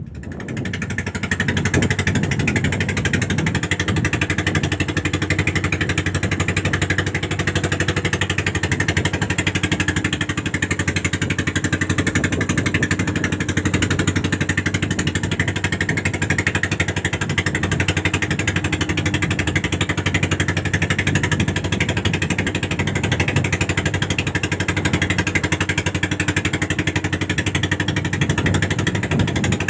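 A small fishing boat's engine running steadily, coming up loud over the first second and then holding an even drone.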